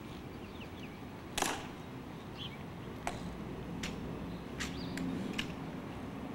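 Honor guard sentinels' hard-soled, metal-tapped shoes clicking on the stone plaza in slow, measured marching steps, about one every 0.8 seconds, after a louder click about a second and a half in. Faint bird chirps are heard between the steps.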